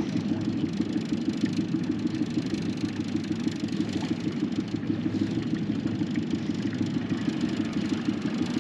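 Fishing boat's motor running steadily at low speed, a low, even drone with a fast flutter, as the boat is eased through a shallow channel.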